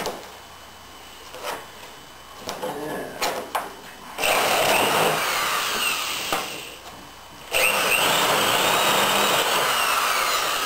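Corded electric drill boring quarter-inch holes through thin plywood hull panels. It runs in two bursts of about three seconds each with a brief stop between, the motor whine rising and falling in pitch, after a few light clicks and knocks of handling.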